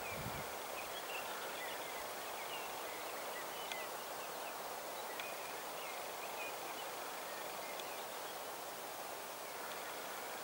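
Outdoor ambience of a steady breeze hissing over open ground, with faint, high bird chirps every second or so.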